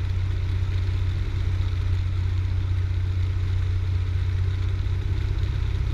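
Cessna 172's single piston engine and propeller droning steadily in flight, heard from inside the cabin; an even, low hum with no change in power.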